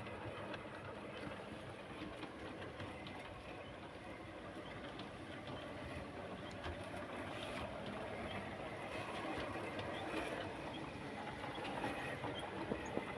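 Piko Baldwin G-scale model steam locomotives running on garden railway track: a steady rumble of motor and wheels with many small clicks over the rails, growing slightly louder.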